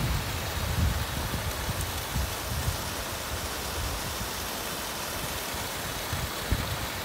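Small waterfall: thin streams of water falling from a rock ledge and splashing onto boulders, a steady hiss, with uneven low rumbling underneath.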